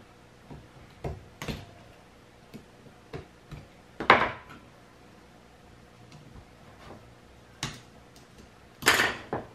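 Scattered sharp clicks and clacks of side cutters snipping and prying at the connection strips of an electric scooter's lithium-ion battery pack, loudest about four seconds in and again near the end.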